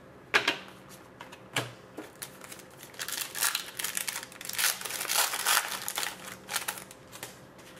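Plastic or foil packaging crinkling as trading cards are handled. A few sharp clicks come first, then about four seconds of dense crackling.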